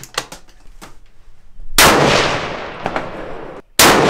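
Two rifle shots from a bolt-action 7mm Remington Magnum, about two seconds apart. Each is a sharp crack followed by a long echoing decay. A few light clicks of rifle handling come before the first shot.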